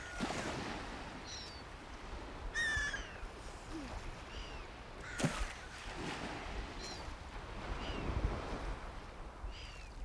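Wild birds calling: short high chirps every second or two, and one longer harsh call about two and a half seconds in. Underneath is a steady outdoor hiss, with low wind rumbles on the microphone at the start and around eight seconds.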